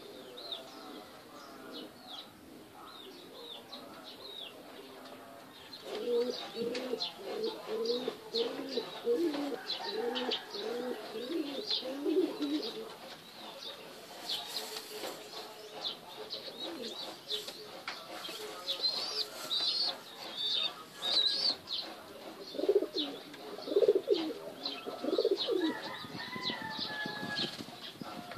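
Domestic pigeons cooing in rounds, the first starting about six seconds in and another near the end, over high chirping calls and some wing flaps.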